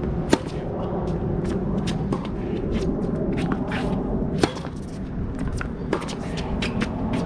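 Tennis rackets striking the ball in a baseline groundstroke rally. Sharp pops about a third of a second in and about four and a half seconds in are the loudest, with another near six seconds, and fainter taps in between.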